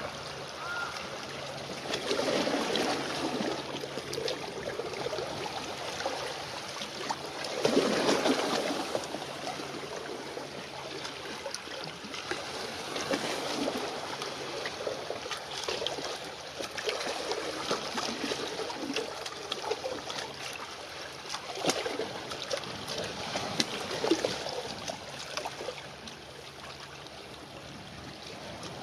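Small waves lapping and splashing at the water's edge in uneven surges; the biggest comes about eight seconds in. A faint steady low hum runs underneath.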